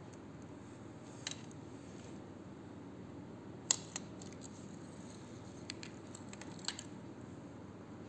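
A few light metallic clicks from a watch's metal link bracelet and case being handled in the fingers. The sharpest click comes about a third of the way in, over a faint steady hiss.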